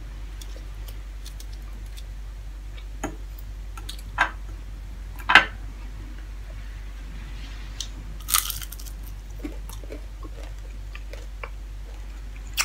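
Close-up eating sounds of fried dried fish eaten by hand: a few separate crunches and bites, the loudest about five seconds in, and a short crackly tear or crunch a little past the middle. A low steady hum runs underneath.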